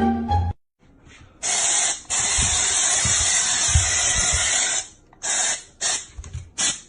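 A long hiss of about three seconds, broken once by a short dip, followed by a run of short, sharp hisses.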